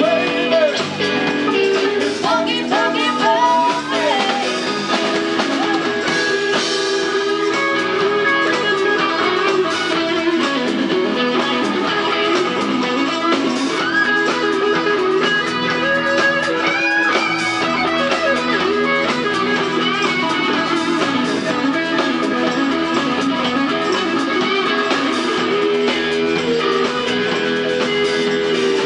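Live rhythm-and-blues band playing a funky groove: electric guitar on a Fender Stratocaster through a Mesa Boogie amp, with bass, drums and keyboards, the guitar bending notes a few seconds in.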